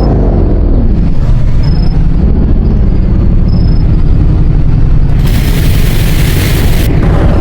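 Fire siren winding down, falling in pitch during the first second, beneath a loud low rumble. A burst of hiss runs for about a second and a half near the end.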